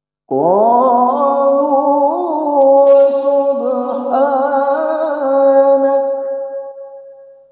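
A male qari reciting the Qur'an in melodic tilawah style: one long, ornamented phrase sung on a single breath, its pitch wavering in turns and trills, fading away near the end.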